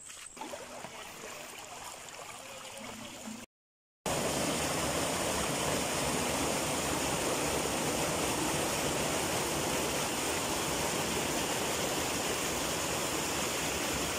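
Shallow rocky river rushing and splashing over boulders: a loud, steady roar of water. It starts about four seconds in, after a quieter opening and a brief gap of silence.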